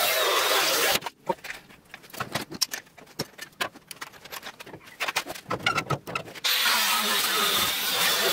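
Cordless Makita angle grinder cutting through the rusty sheet steel of a car's rear wheel arch. The cut stops about a second in and the disc spins down, followed by a few seconds of scattered knocks and clicks. The grinder starts cutting again about six and a half seconds in.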